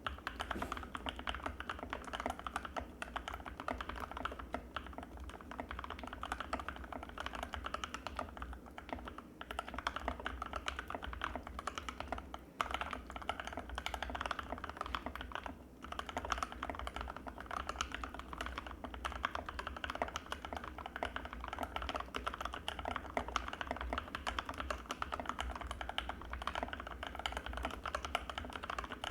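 Continuous fast typing on an Anne Pro 2 mechanical keyboard with Gateron Red linear switches: a dense stream of creamy keystroke clacks, broken by a few brief pauses.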